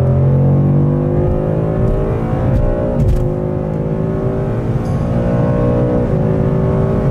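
2018 Ford Mustang GT's 5.0-litre V8 under hard acceleration, heard from inside the cabin. The engine pitch climbs steadily, then drops at an upshift about three seconds in and again about six seconds in.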